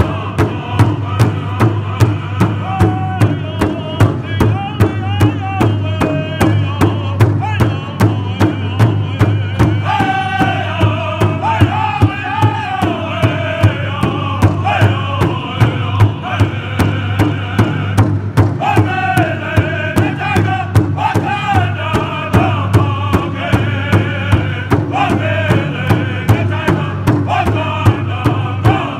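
Powwow drum group singing in unison over a large shared hand drum, which several singers beat with sticks in a steady, even beat. The sung lines swell louder and higher about ten seconds in and again just before twenty seconds.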